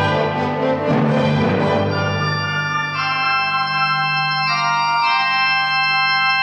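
Organ playing loud sustained chords that shift every second or so, denser in the first two seconds and then clear, held chords over a low sustained note that drops out about five seconds in.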